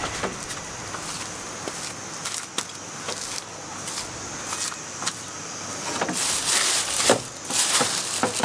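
Camping gear and wooden boards knocking and clattering as they are handled and loaded into a wooden hand cart, with scattered clicks. The knocks come thicker and louder, with some rustling, in the last couple of seconds.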